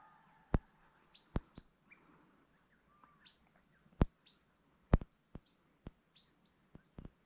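Steady high-pitched drone of insects, with a few short bird chirps. Five sharp clicks break through it, the loudest about four and five seconds in.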